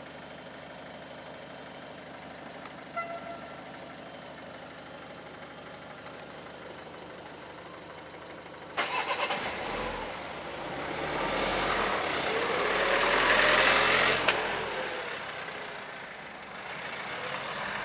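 A car crosses the level crossing: a quick run of knocks as its tyres go over the rails about nine seconds in, then the rising and falling rush of it passing close by. Another vehicle approaches near the end.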